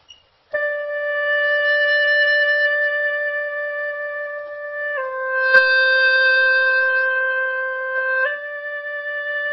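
Hulusi (gourd flute) playing long held notes with a gentle false-finger vibrato, the finger lightly fanning over the hole edge so the pitch waves stay small and fine. The note starts about half a second in, drops a step about halfway through, and steps back up near the end.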